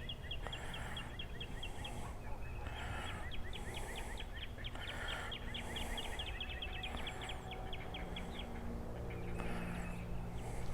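Outdoor ambience led by a bird's long, rapid trill of short falling chirps, about seven a second, which pauses briefly about two seconds in and stops near the end. Under it are a faint high hiss pulsing about once a second and a low steady hum.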